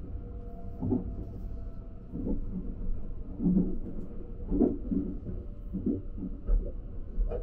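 Steady low rumble of a 285-series sleeper train running, heard from inside its small shower room. Over it come irregular soft knocks and rustles, about one every half second to second.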